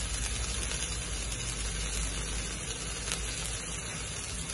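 Diced mixed vegetables sizzling steadily in a hot frying pan.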